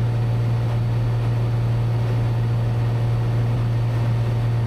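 Cessna 182's engine and propeller droning in level cruise, heard from inside the cabin: a steady low hum over an even rush of air noise.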